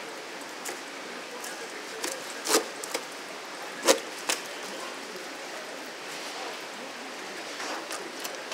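A knife knocking and tapping on a cutting board as a large yellowtail is butchered, with a few short sharp knocks, the two loudest about two and a half and four seconds in, over a steady background hiss.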